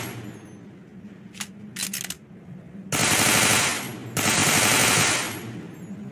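Layered Uzi submachine gun sound effect: a single click and then a quick cluster of clicks, followed by two back-to-back bursts of full-auto fire about a second each, the second trailing off.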